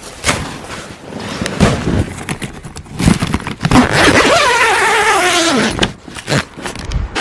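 Footsteps crunching in deep snow, then a heavy zipper on a fabric shelter's door being pulled open for about three seconds, falling in pitch near the end.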